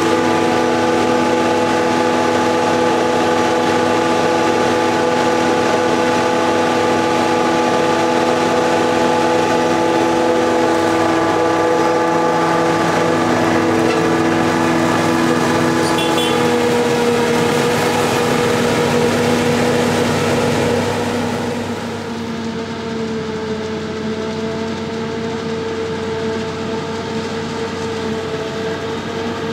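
Claas Jaguar 870 self-propelled forage harvester running steadily while chopping corn for silage: a loud, even drone made of several steady whining tones over a rushing noise. About 21 s in it becomes a little quieter and duller.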